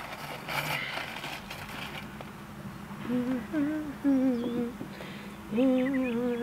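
A woman humming a tune in a run of held, gliding notes that begins about three seconds in. Before it, a short rustle as landscape fabric is smoothed by hand.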